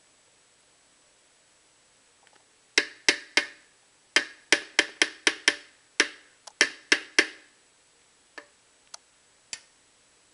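A metal spoon knocking against a plastic blender jar, shaking yogurt off into it: about a dozen sharp, quick taps over roughly four seconds, starting a few seconds in, then three fainter taps.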